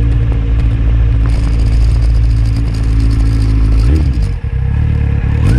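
Motorcycle engine running steadily as the bike rides along, its note dipping briefly and picking up again about four seconds in. A hiss rides over it through the middle.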